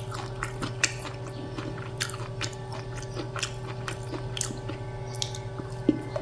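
A person chewing and biting food, with irregular small crisp clicks and smacks, over a steady low hum.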